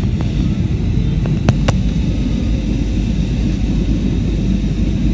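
Steady low rumble of an Airbus A320's engines and airflow heard inside the passenger cabin during descent, with two or three short clicks about one and a half seconds in.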